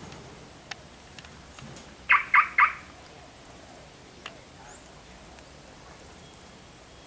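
An animal calling three times in quick succession, short sharp calls about two seconds in, with a few faint clicks around them.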